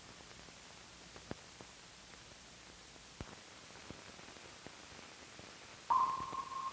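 Faint hiss from an old film soundtrack, with scattered clicks and pops. Near the end a steady beep starts abruptly and holds.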